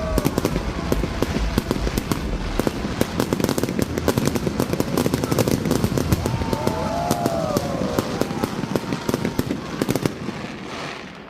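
Fireworks display: a dense, continuous rattle of crackling and popping bursts, thinning out and fading in the last second.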